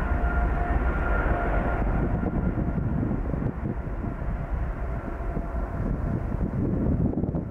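Jet Airways Boeing 777-300 twin-engine airliner at takeoff thrust on its takeoff roll: a heavy, steady jet-engine rumble. A faint whining tone fades out about two seconds in as the aircraft passes.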